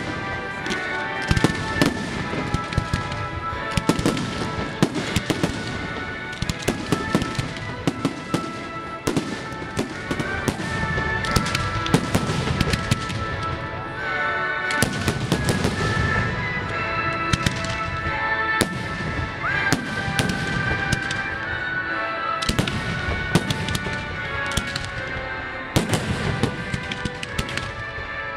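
A fireworks display with aerial shells bursting in a dense, continuous barrage of bangs and crackles, often several a second.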